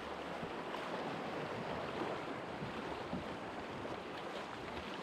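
Steady rush of moving river water, an even hiss with no distinct strokes.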